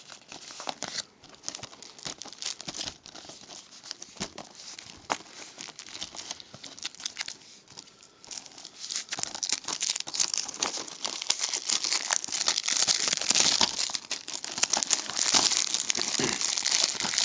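Plastic shrink-wrap being crinkled and torn off a Blu-ray case, a dense irregular crackle that starts sparse and grows louder and busier about halfway through.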